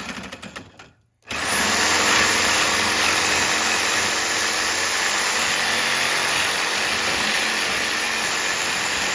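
Reciprocating saw (Sawzall) running and cutting through the sides of a copper-aluminum radiator, with a steady high whine; the blade is just about done. The sound fades to silence about a second in, then starts again and runs steadily.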